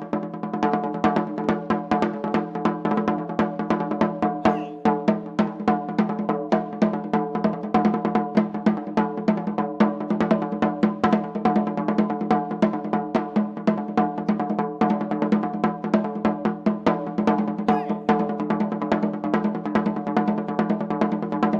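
Katsugi-oke daiko, the shoulder-slung Japanese barrel drum, played in fast, dense, driving strokes over a steady low pitched tone. The playing eases briefly about four and a half seconds in.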